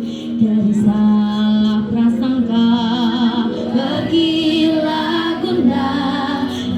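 A school choir singing with accompaniment, holding long notes with vibrato over a steady sustained low note.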